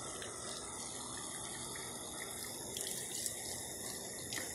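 Garden hose running steadily, its water splashing onto a plastic ride-on toy car.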